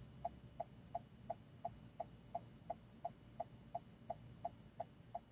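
Car turn-signal indicator ticking evenly, about three clicks a second, over a faint low rumble of the idling car inside the cabin.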